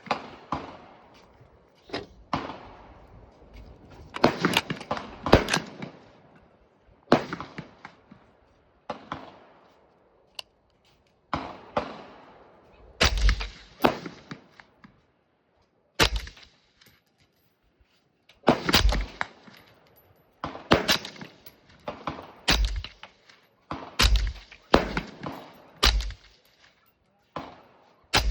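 Suppressed Noveske Chainsaw 10.5-inch AR pistol with a Banish 223 suppressor, firing a series of shots: single shots, quick pairs and short strings, each a sharp report with a short fading echo.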